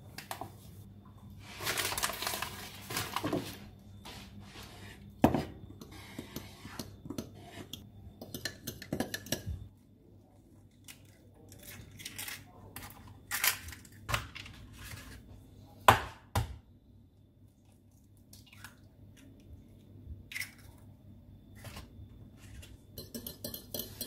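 Kitchen prep sounds: a flour bag rustling as it is shaken out, then a series of sharp taps and clicks as eggs are cracked into a well of flour on a wooden pastry board.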